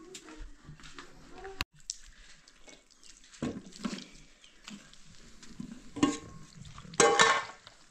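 Metal cooking pots and lids clinking and knocking as they are handled, with the loudest ringing clanks about a second before the end.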